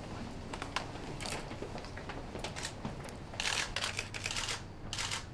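Several DSLR camera shutters clicking: scattered single clicks, then dense rapid bursts of clicks a little past the middle and again near the end.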